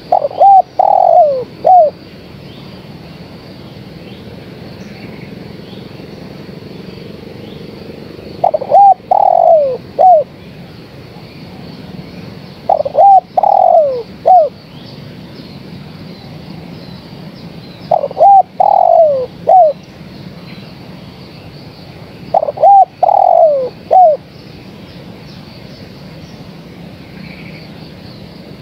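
Spotted dove cooing, billed as a female calling to males: five phrases of three or four short, falling coos, each phrase about a second and a half long and coming every four to five seconds, over a steady faint hiss.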